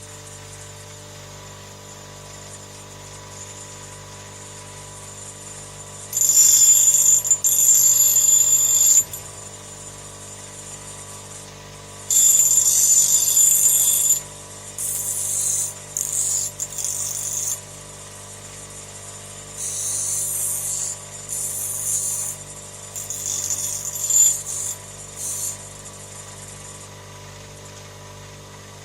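Electric grinder cutting into steel in bursts: two long grinds of about three and two seconds, then several shorter ones. It is dressing down a chainsaw starter part that was flattened by hammering.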